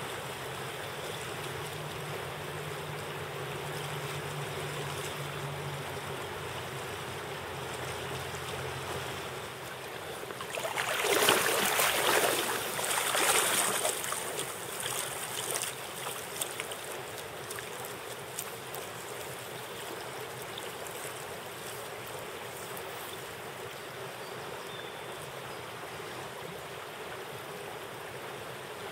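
Steady rush of a wide river's flowing water. About ten seconds in comes a louder few seconds of splashing as a hooked brown trout is brought to hand in the shallows.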